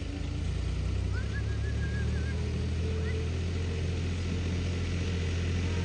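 Heavy diesel engine of an earth-moving machine running steadily. It picks up to a louder, even drone about a second in.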